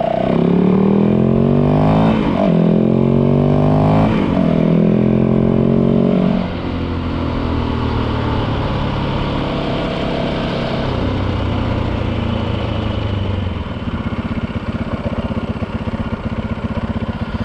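Yamaha WR450 single-cylinder four-stroke dirt bike engine accelerating through the gears, the revs climbing and dropping back at shifts about two and four seconds in. About six seconds in it eases off to quieter, steadier running at lower revs.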